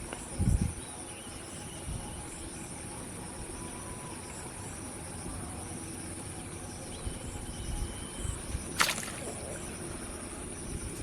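Steady high-pitched insect chirring, with a couple of low thumps about half a second in and one sharp click near the end.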